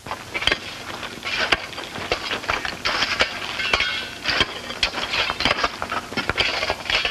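Irregular hammer blows and clatter of hand tools on rock, as men drill holes for dynamite charges.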